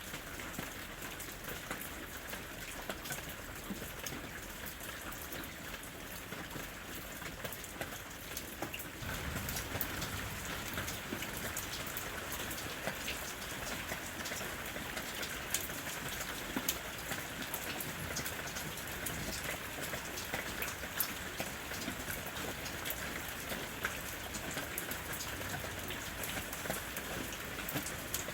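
Steady rain falling in a forest, a constant hiss with many separate drops pattering close by; it gets a little heavier about a third of the way in.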